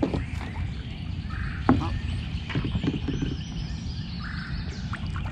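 Outdoor ambience over water: a steady low rumble with a few faint bird chirps, and one sharp knock about a second and a half in.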